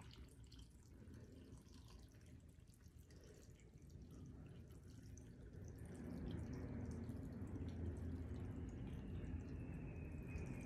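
Thin stream of filtered water pouring from a glass pitcher into a tall glass jar packed with carrot and cauliflower pieces, a faint trickle that grows louder about six seconds in.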